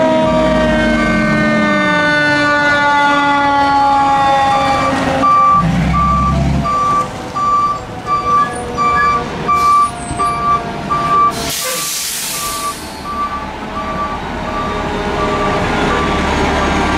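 Fire ladder truck's siren winding down with falling pitch, then the truck's reversing beeper sounding short, evenly spaced beeps over its engine as it manoeuvres. A sharp hiss of air brakes comes about two-thirds of the way through.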